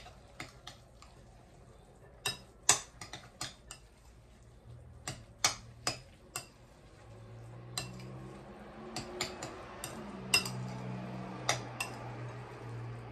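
Irregular sharp clinks against a glass mixing bowl as egg is mixed into cooked rice. A low steady hum comes in about halfway.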